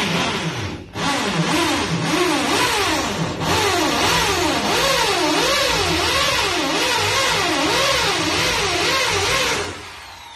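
Corded electric drill boring into a wall, its motor pitch rising and falling again and again as it works. It pauses briefly about a second in and stops shortly before the end.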